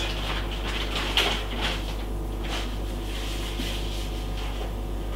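Steady low hum with a few faint light clicks and taps of kitchen handling, the clearest about a second in.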